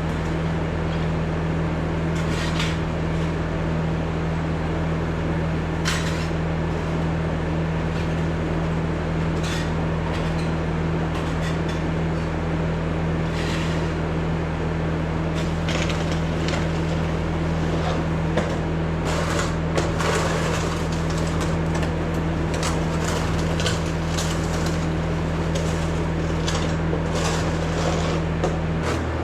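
Skid steer engine running at a steady speed while its bucket scrapes up leftover manure and bedding from a barn floor, with scattered clunks and scrapes over the hum.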